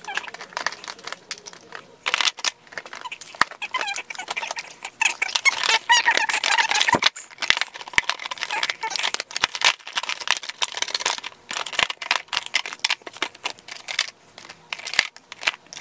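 Eyeshadow palettes clicking and knocking as they are set into and shuffled about in a clear acrylic organizer, with many sharp clacks throughout. Around the middle, the palettes rub against the acrylic with a run of high, wavering squeaks.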